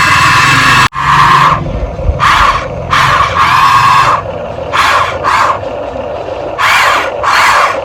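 Small electric motor of a radio-controlled construction model whining steadily, cut off about a second in, then revving in about eight short whining pulses that rise and fall in pitch.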